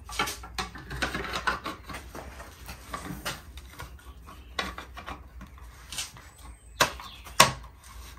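Hard plastic seat trim being handled and pushed onto a metal seat frame: scattered clicks and knocks, with two sharp, loud clicks near the end as the trim is pressed home.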